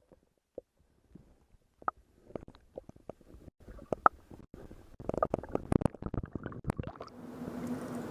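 Muffled, scattered clicks and knocks of a GoPro camera in its waterproof housing being handled. They come sparsely at first and grow busier after about five seconds, and a steady background rush comes back near the end.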